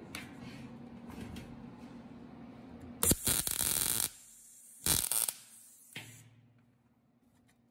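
MIG welder arc crackling as it fills a hole in thin sheet steel backed by a flattened copper pipe: one burst of about a second, then a short second burst about two seconds later. The welder is an Eastwood MIG 135.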